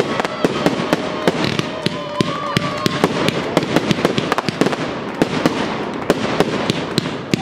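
Fireworks display: aerial shells and comets bursting in quick succession, several sharp bangs and crackles a second with no let-up.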